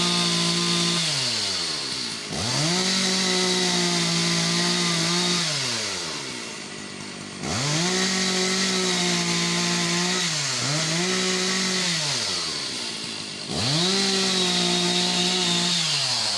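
Petrol chainsaw's two-stroke engine repeatedly revved to high speed and held there for several seconds at a time, dropping back toward idle in between, with a brief dip about ten seconds in, while cutting rubber tree wood.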